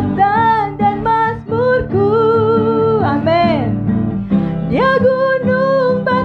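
A woman sings a slow worship song in Indonesian into a microphone, accompanied by acoustic guitar. She holds a long note that glides down about three seconds in, then after a brief pause slides up into the next line.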